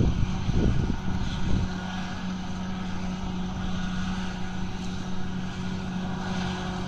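Distant John Deere tractor's diesel engine running with a steady, even drone. Low buffeting on the microphone through the first second and a half.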